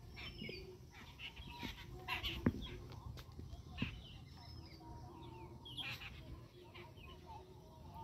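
Jungle babblers calling: short, sharp, noisy chattering notes in scattered bursts, with a brief falling whistle twice.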